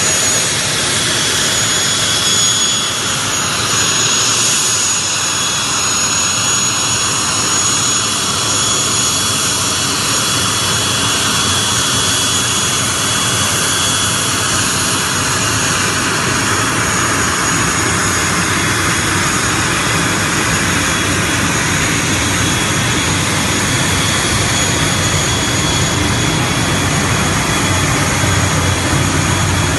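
Aircraft turbine engine running steadily, a loud continuous rush with a thin high-pitched whine over it.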